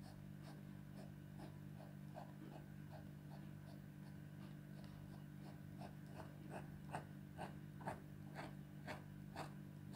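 Pen scratching on paper in short repeated strokes, about two to three a second, growing louder and longer in the last few seconds, over a steady low hum.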